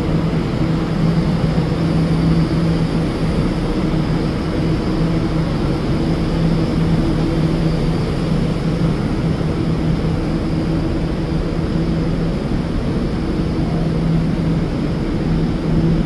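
Bombardier R179 subway train standing in the station with its doors open, giving a steady, unchanging hum with a few low tones.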